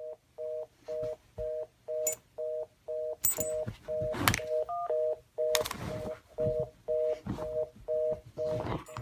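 Telephone fast-busy (reorder) tone: a two-note beep repeating about twice a second, with a few knocks and clatters over it in the middle.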